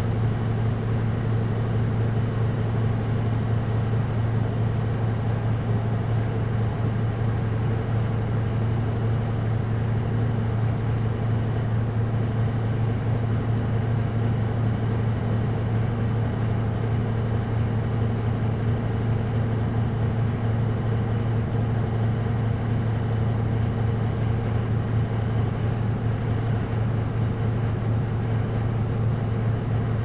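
Miyako MAW-12QS 12 kg washing machine spinning a load of clothes: the motor and drum give a steady low hum with a spinning rush above it, unchanging throughout.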